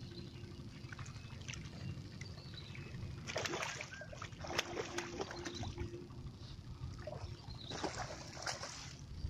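A hooked patin (pangasius catfish) thrashing at the surface by the bank, making splashes. There are three bursts of splashing: about three seconds in, again around five seconds, and again near eight seconds.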